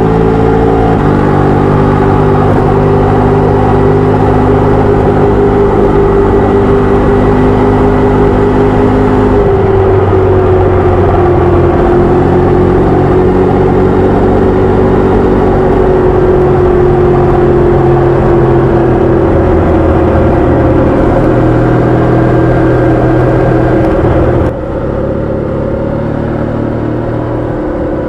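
Adventure motorcycle's engine running under way at fairly steady revs. Its pitch steps down about a third of the way in and then slowly sinks further. The sound drops suddenly in level near the end.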